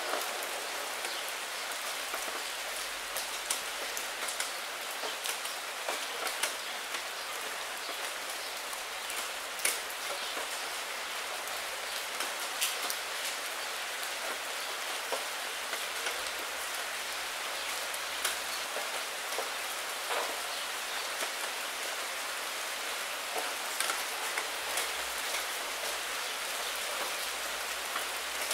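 Steady rain hitting a window pane: an even hiss with many separate drop hits, close and sharp, at irregular moments.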